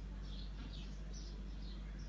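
Whiteboard marker squeaking across the board during handwriting: a run of short high squeaks, about three a second, over a steady low electrical hum.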